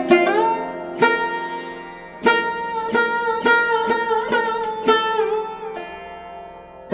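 Background music: a plucked Indian string instrument in the sitar style, notes struck sharply and ringing on with bends in pitch over a steady drone.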